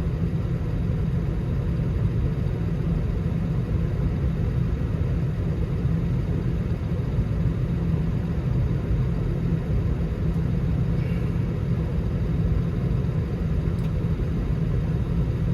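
Engine running at a steady, unchanging low drone.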